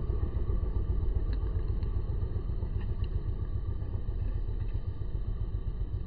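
Low, uneven background rumble.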